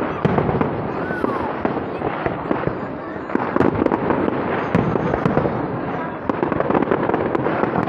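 Aerial display fireworks going off one after another: shells bursting amid dense, continuous crackling and popping.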